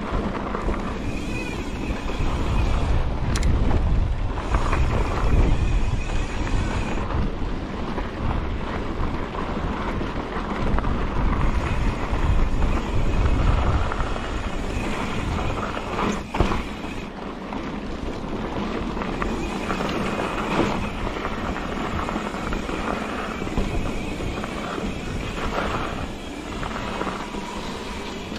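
Wind rushing over the microphone with the rumble and rattle of a mountain bike rolling over a rocky trail. It is heaviest about two to six seconds in and again around twelve seconds, with a sharp knock near the middle.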